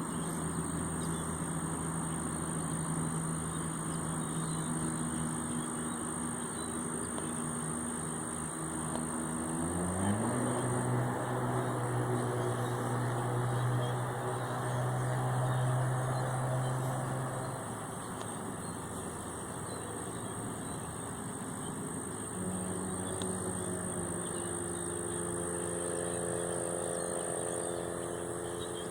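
A vehicle engine running steadily, its hum jumping to a new pitch with a short glide about ten seconds in and shifting again near the end. A steady high insect chirring runs underneath.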